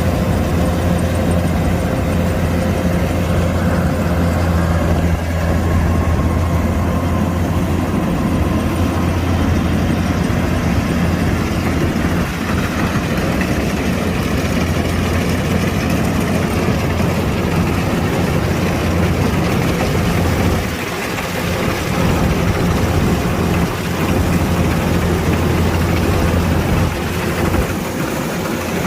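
Kubota DC-105X combine harvester's diesel engine running steadily with a low hum, easing off briefly about two-thirds of the way through and again near the end.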